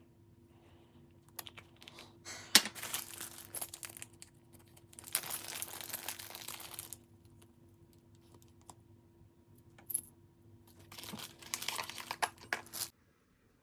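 Rustling and crinkling handling noise in three bursts, like packaging or plastic being handled, over a faint steady hum that cuts off near the end.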